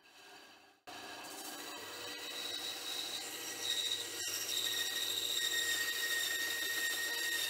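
Benchtop bandsaw cutting into a small aluminium block, starting about a second in: a steady motor hum with a high blade whine that grows louder about four seconds in.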